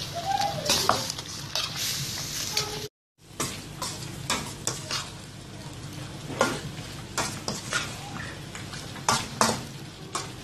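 Chicken frying in a spiced onion-tomato masala in a steel kadai, sizzling while a spatula stirs it, with irregular scrapes and clicks against the pan. The sound drops out completely for a moment about three seconds in.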